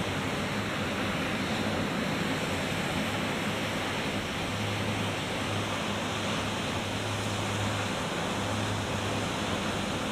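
Ocean surf washing on the beach as a steady, even hiss, with no single breaking wave standing out.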